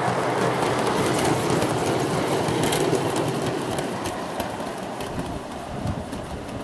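Gauge 3 model coaches and brake vans rolling along garden-railway track, a steady rumble of wheels on rail with many sharp clicks over the rail joints, growing quieter over the last couple of seconds as the train draws away.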